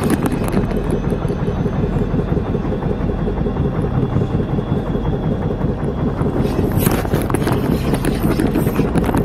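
Small fishing boat's engine running, a steady low rumble.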